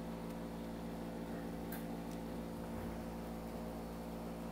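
Steady electrical hum and hiss of the microphone setup, with two faint clicks a little under two seconds in.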